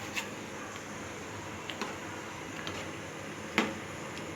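Thick yellow pumpkin and mango pachadi with coconut paste simmering in a pot, its bubbles popping sharply a few times with the loudest pop near the end, over a steady low hiss.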